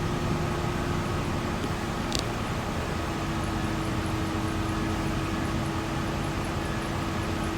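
City bus under way, heard from inside the cabin: steady engine and road noise with a constant hum at one pitch. A short click about two seconds in.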